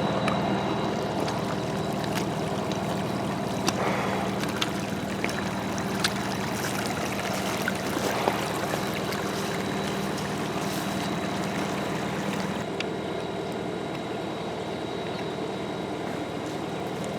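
Case 780 backhoe's diesel engine running steadily, with scattered sharp clanks and knocks. The engine note drops about thirteen seconds in.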